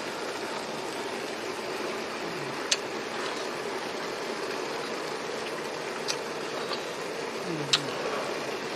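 Steady rain falling outside, an even hiss, with a few short sharp clicks or taps over it.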